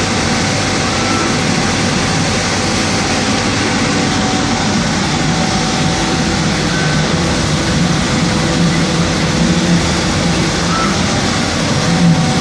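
Laser cutting machine running while it cuts scuba fabric: a steady, even mechanical noise with a faint steady hum under it.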